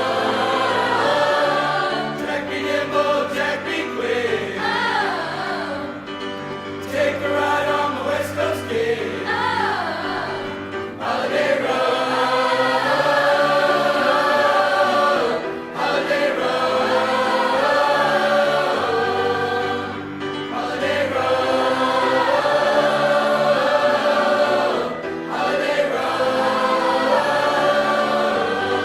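High school vocal ensemble singing a Christmas song, several voice parts in harmony with held and moving notes.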